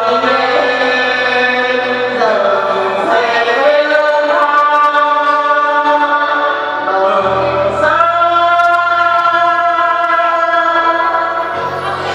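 A man and a woman singing a duet into microphones over musical accompaniment, holding long sustained notes.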